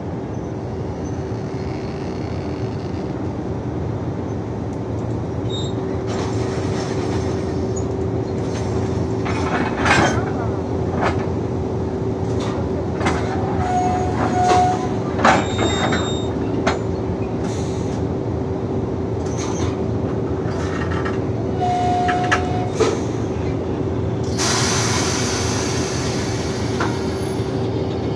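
Electric locomotive easing up to a passenger carriage to couple: a steady electrical hum, scattered metallic clanks and brief squeals as it closes in, and a burst of hissing about three-quarters of the way through.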